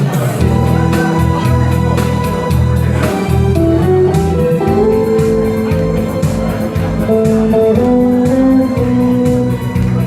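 Band music in a fast disco rhythm: an instrumental passage with a guitar-led melody over bass and a steady drum beat.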